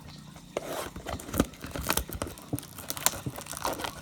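Packaging being slit with a razor blade and torn open, plastic wrap crinkling and ripping in irregular crackles that start about half a second in.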